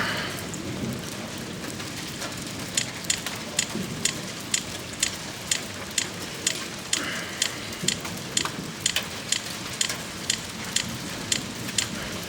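Heavy rain falling steadily in a thunderstorm. From about three seconds in, sharp ticks of drops or ice pellets strike a hard surface close by, two or three a second.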